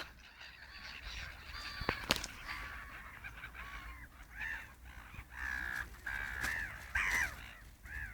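Birds calling repeatedly while squabbling over food: a series of short arching calls, one drawn out, from about four seconds in, after a single sharp knock about two seconds in.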